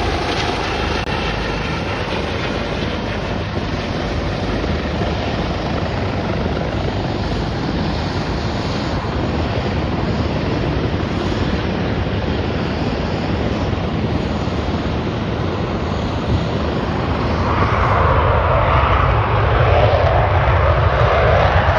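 Aircraft engines running, a steady loud rushing noise that grows louder about seventeen seconds in.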